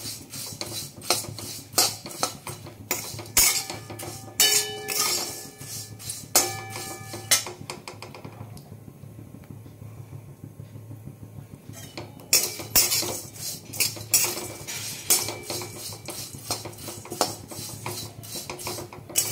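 A flat metal spatula scraping and clinking against a metal kadai, stirring flattened rice (chira) as it roasts, in quick repeated strokes. The stirring pauses for a few seconds about halfway through, then starts again.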